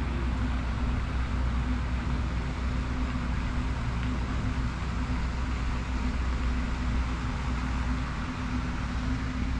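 A steady low rumble with a faint, even hum in it and no distinct events.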